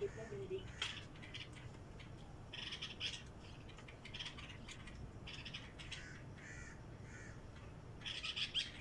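Small birds chirping in short bursts, with a crow cawing three times a little past the middle.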